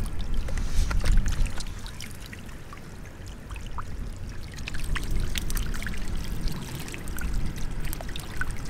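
Shad spawning in the shallows at a rocky lake edge: many small, quick splashes and water lapping against the rocks, over a low rumble. The splashing eases for a second or two about two seconds in, then picks up again.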